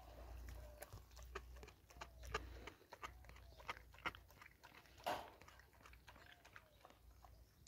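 Kangal dog biting and chewing on a raw leg of meat: irregular wet clicks and crunches of teeth on meat and bone, with a louder crunch about five seconds in.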